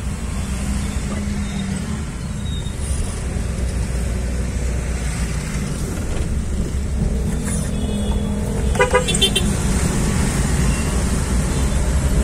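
Car engine and road noise, steady and heard from inside the cabin. About nine seconds in, a vehicle horn honks in a quick run of short beeps.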